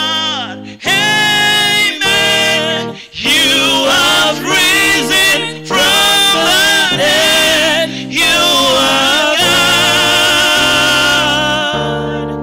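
Live gospel praise singing: a male lead vocalist sings loud, phrased lines with female backing singers joining, over steady held accompaniment chords.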